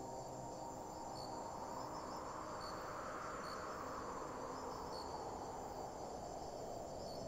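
Night insects, cricket-like, chirring steadily with short chirps about once a second. A soft rushing noise swells up to a peak midway and fades away again.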